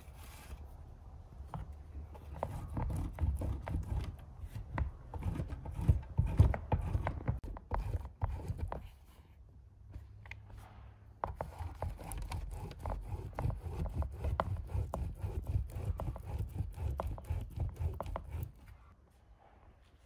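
A block of butter is rubbed up and down a metal box grater in quick, rhythmic scraping strokes, each with a dull low thud. There are two runs of grating with a short pause between them.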